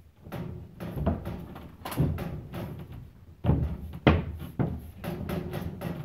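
A cut piece of drywall knocking and bumping against the ceiling framing as it is pushed up into place by hand. There are about a dozen irregular knocks, the loudest about three and a half and four seconds in.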